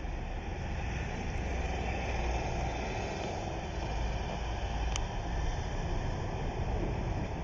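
Steady outdoor background noise with a low rumble, and a single brief high click about five seconds in.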